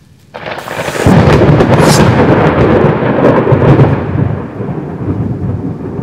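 Thunder: a crackling onset in the first couple of seconds that grows into a loud low rolling rumble, slowly easing off, with rain falling.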